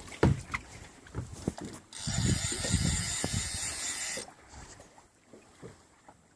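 Fishing reel on a salmon rod under strain from a heavy fish: scattered ratcheting clicks, then about two seconds of steady drag buzzing as line goes out. After that it goes quieter.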